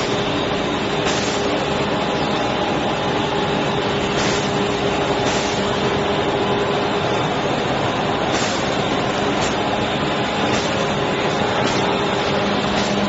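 Plastic sheet extrusion line running, a steady even machine noise with a low hum underneath and faint recurring ticks.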